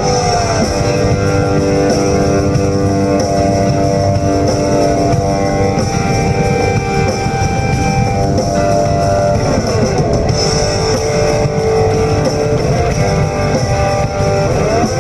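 Rock music led by guitar, playing steadily.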